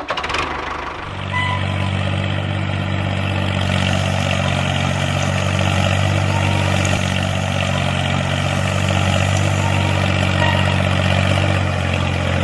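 Tractor engine running steadily at an even pitch, like a diesel at a steady idle, coming in about a second in.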